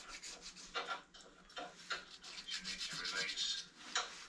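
Irregular scraping and rubbing, a few short strokes a second, as metal parts of a classic Mini door are worked by hand.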